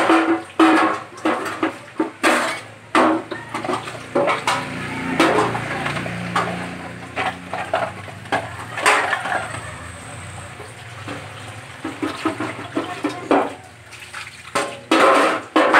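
Stainless steel tray being handled and rinsed at a sink: water splashing and running, with irregular clanks and knocks of metal against the sink.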